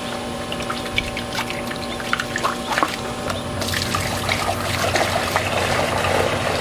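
A few clinks and knocks of a plastic chicken waterer being handled, then water pouring and splashing steadily from about halfway through as the waterer is rinsed and refilled.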